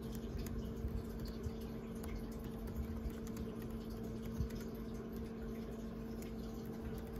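Typing on a laptop keyboard: irregular soft key clicks over a steady low hum.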